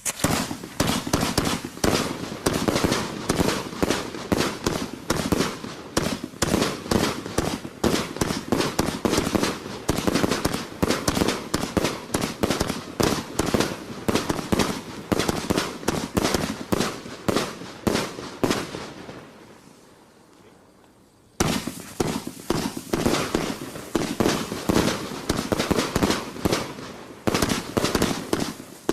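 A 120-shot 30 mm firework cake firing shot after shot in rapid succession, about four a second. The firing tails off two-thirds of the way through, falls nearly quiet, and starts again abruptly a couple of seconds later.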